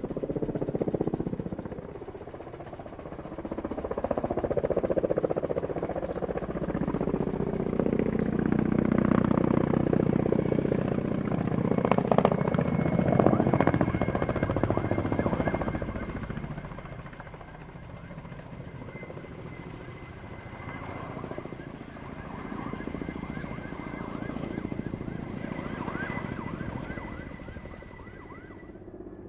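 Kamov Ka-32 coaxial-rotor helicopter flying past with a water bucket slung beneath it, its rotor and engine noise building to loudest around the middle and then fading. A thin steady high whine runs through the second half.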